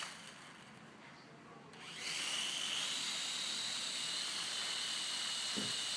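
Small quadcopter drone's electric motors and propellers spinning with a steady high whine and hiss. The whine cuts out at the start and spins back up about two seconds in.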